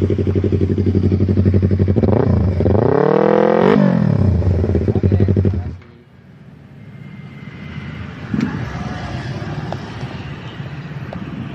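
Yamaha MT-25 parallel-twin engine breathing through an F2Racing aftermarket exhaust. It idles, is revved once, rising and falling back to idle, and the engine sound stops about six seconds in, leaving a quieter background with a single knock.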